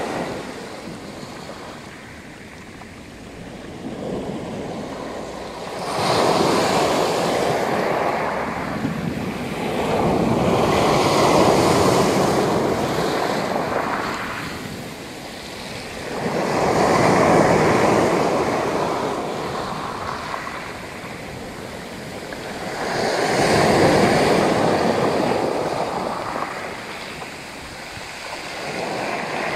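Black Sea surf breaking on a stony beach, swelling and ebbing in slow surges about every six seconds.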